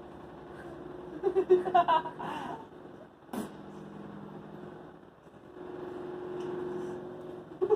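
A toddler's short squealing vocal sounds, about a second in and again near the end, over a steady low hum, with one sharp knock about three seconds in.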